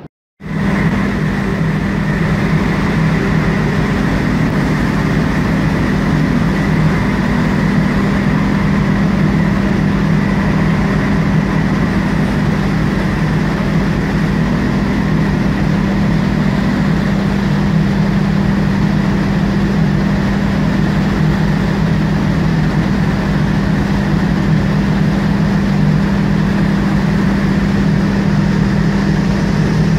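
Marine diesel engines running steadily: a constant low drone with a fainter higher whine, starting abruptly a moment in and not changing afterwards.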